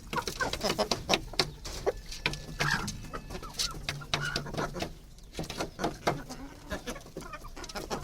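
Silkie chickens clucking softly in low murmurs, among many short sharp taps.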